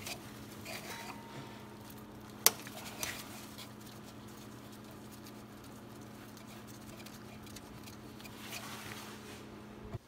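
Small metal clicks and handling noise as a steel brake line fitting is threaded into the flexible brake hose by hand, with one sharp click about two and a half seconds in. A steady low hum runs underneath.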